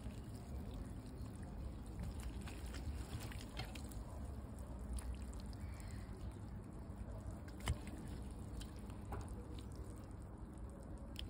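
Braised wild boar and its juices being ladled from a cauldron onto a plate with a metal skimmer: quiet wet dripping and sliding, with faint clicks and one sharper tap a little past halfway, over a low steady background rumble.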